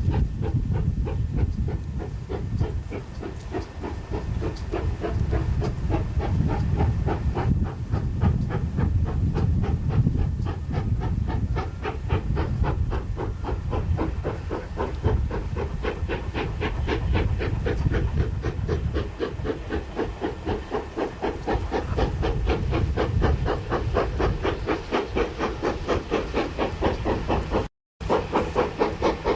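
GER N7 0-6-2 tank steam locomotive working hard: a steady run of evenly spaced exhaust beats with steam hiss, the beats growing sharper and more distinct as it goes. A brief break near the end, then the beats carry on.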